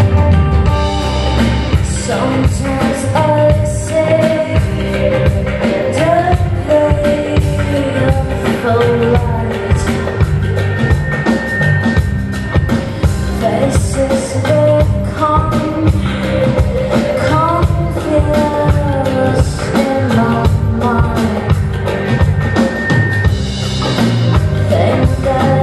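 Live band music: a woman singing into a microphone over a drum kit and accompanying instruments.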